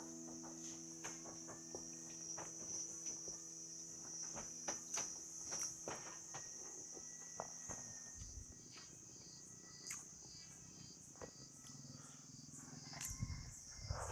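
Faint, steady high-pitched chirring of crickets, with scattered small clicks. A low sustained musical chord fades out over the first half.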